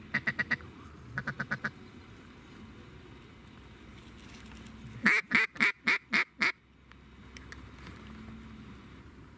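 Mallard quacking in quick strings: two short runs of about five quacks near the start, then a louder run of six about five seconds in.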